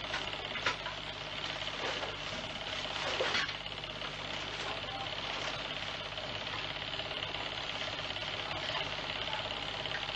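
Steady mechanical whirring with a low constant hum and hiss, and a few faint clicks in the first few seconds.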